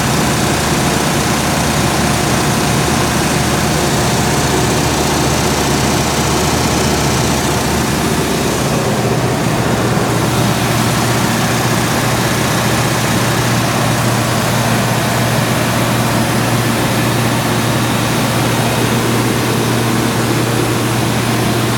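Cummins GTA8.3 natural-gas engine of a 150 kW generator set running at a steady speed, a continuous low hum whose tone shifts slightly about nine seconds in.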